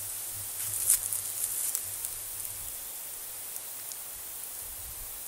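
A short burst of rustling and crackling leaves about a second in, over a steady high hiss.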